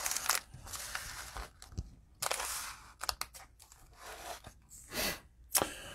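Sealed cellophane trading-card packs crinkling as gloved hands handle and stack them, in several short bursts.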